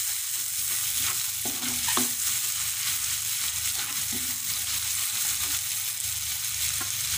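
Chopped garlic sizzling in melted margarine in a wok, stirred with a spatula. A few scrapes and knocks of the spatula against the pan, the loudest about two seconds in, sit over the steady sizzle.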